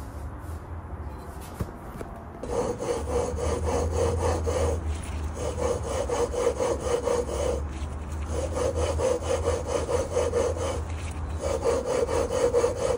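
Flywheel being twisted back and forth by hand on the crankshaft taper of a Tillotson 236cc engine, lapping the two tapers to seat them. It makes a gritty rubbing in four bouts of quick strokes, starting about two and a half seconds in.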